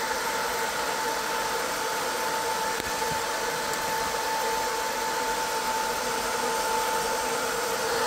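Top-mounted cooling fan of a Longer 20 W diode laser module running steadily, fitted with a stack of laser-cut spacers: an even rush of air with a steady whine.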